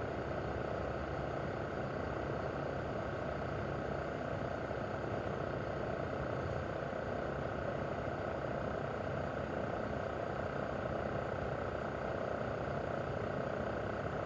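Mitsubishi Heavy Industries SRC2221T air-conditioner outdoor unit running steadily in cooling mode: the propeller fan's even rushing noise over a low hum from its inverter-driven single-rotary compressor.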